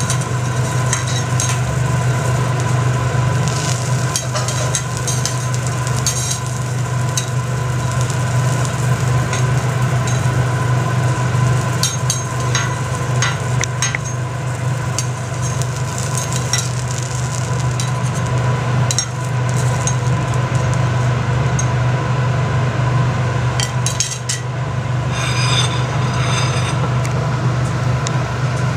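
Metal spatulas clinking and scraping on a steel teppanyaki griddle in short, scattered strokes, over a steady low hum that is the loudest sound throughout.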